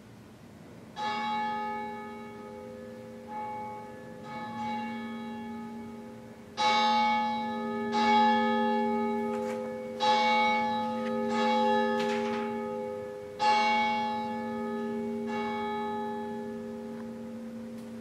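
A church bell rung about nine times, strokes coming every one to two seconds, each ringing on and overlapping the next.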